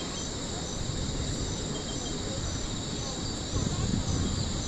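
Insect chorus: a steady high-pitched drone with a faster pulsing chirp layered above it, over a low rumble that swells briefly about three and a half seconds in.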